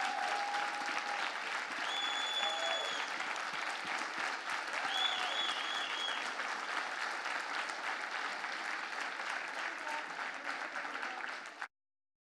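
Audience applauding steadily, with a few high-pitched cheers over it about two and five seconds in; the applause cuts off suddenly near the end.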